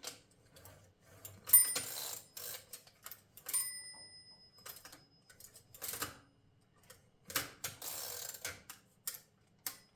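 Underwood No. 5 typewriter mechanism being worked by hand: sharp clicks and rasping sliding as the margin stops and carriage are moved, with a short metallic ring about three and a half seconds in.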